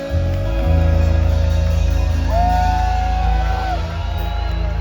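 Live reggae band playing on stage, with a heavy, steady bass line; a long held note rises in over the band about halfway through.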